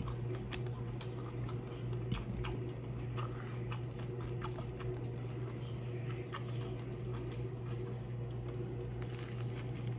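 Close-up eating sounds: irregular small clicks and crackles as fingers pick seasoned ground beef and crumbs off a plate and tuck them back into a crisp taco shell, with chewing, over a steady low hum.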